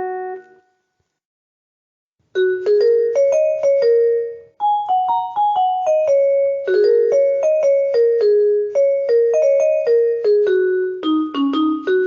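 Casio CTK-2400 keyboard playing a melody of single notes on one of its preset voices. A note fades out in the first half-second and about two seconds of silence follow. The tune then starts, with a brief break midway and a run of lower notes near the end.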